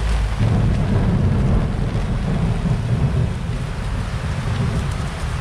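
Heavy typhoon rain falling, with a low rumble of thunder that starts suddenly and eases after about three seconds.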